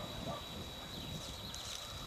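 Footsteps walking through dry, rough grass, an uneven run of rustling strides, with a few faint high bird chirps.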